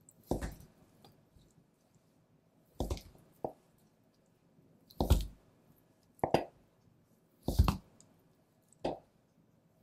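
A long knife slicing thin slices from a block of raw Kuroge Wagyu beef knuckle (shintama) on a cutting board: seven short, wet squishes at irregular gaps of one to two seconds.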